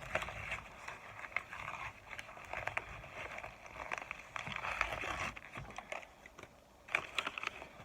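Microwaved cornstarch chunks crunching and crackling: a dense run of small irregular crackles, with a thicker flurry about seven seconds in.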